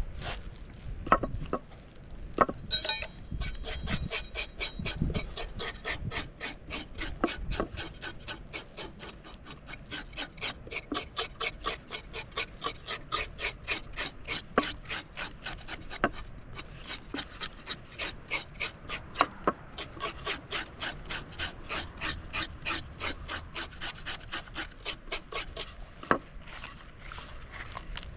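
A knife scraping scales off a freshly caught fish on a board, in even rhythmic strokes of about three a second, with a few sharper knocks.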